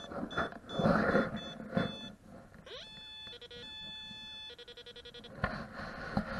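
Teknetics Minuteman metal detector giving short, evenly repeated high beeps over the rustle of the search coil sweeping through grass. About three seconds in it switches to a run of steady electronic tones at several pitches, some stepping and pulsing, for about two seconds, before the rustling returns.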